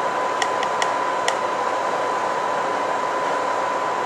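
Steady fan-like hiss with a thin, steady high-pitched tone running through it. Three light clicks fall within the first second and a half as apple cubes are set down on a ceramic plate.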